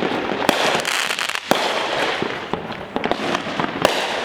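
Fireworks going off: many sharp bangs and pops, several loud cracks among them, over continuous crackling.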